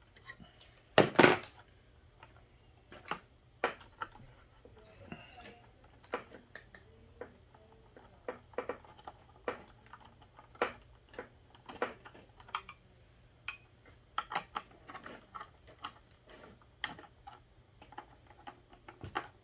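Irregular clicks and taps of wiring work by hand: crimped spade terminals and wires being handled and fitted to a switching power supply's screw terminal block, with a louder double clack about a second in.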